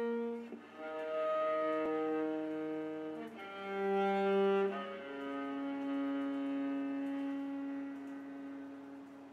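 Slow instrumental score of bowed strings, cello-like, playing long held notes that change every second or two. From about halfway, a single low note is held and slowly dies away.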